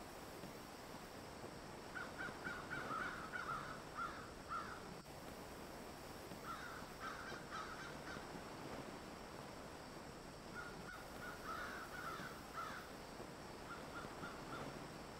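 Birds calling in four bouts of short, quickly repeated notes, several notes a second, over a faint steady hiss.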